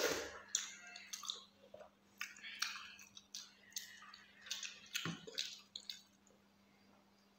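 Person chewing a mouthful of rice and curry close to a collar microphone: a quick run of wet mouth clicks that stops about six seconds in, over a faint steady hum.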